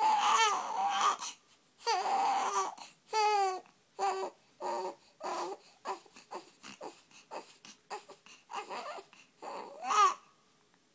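A baby with the hiccups crying. Long wails in the first few seconds give way to shorter, repeated sobbing cries. One last loud cry comes just before the crying stops, about ten seconds in.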